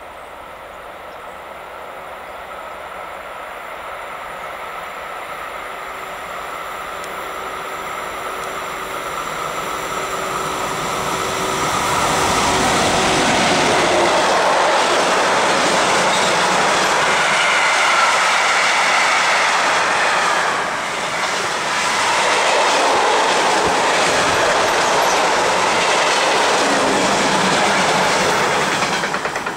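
ÖBB Taurus electric locomotive hauling a mixed freight train, approaching and steadily growing louder, then passing at speed about twelve seconds in. The freight wagons' wheels clatter on the rails as the long train goes by, dropping off near the end.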